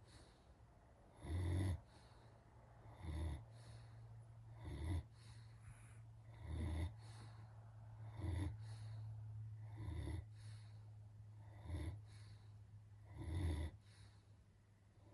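German Shepherd dog snoring in its sleep: eight short snores, one about every second and three-quarters.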